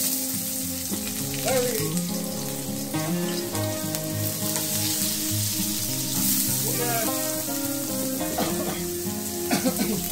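Chopped garlic sizzling steadily as it fries in hot oil in a wok, with a short louder crackle near the end as diced red onion goes in. Background music plays underneath.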